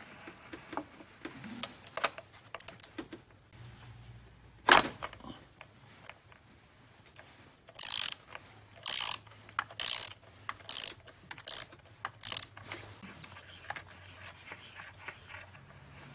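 Ratchet and spark plug socket loosening a spark plug from the cylinder head of a Toyota 2GR-FKS V6. Light scattered clicks, one sharp snap about five seconds in, then a run of about six short ratcheting bursts a little under one a second in the second half.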